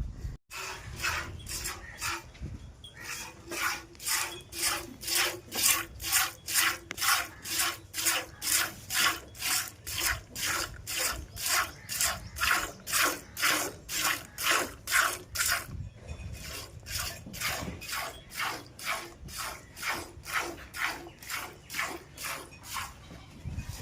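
Hand milking: rhythmic jets of milk squirting into a pail, about two squirts a second, with a short pause about sixteen seconds in.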